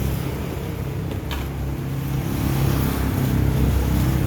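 Motor vehicle engine running with a steady low hum that grows a little louder toward the end, with a faint click about a second in.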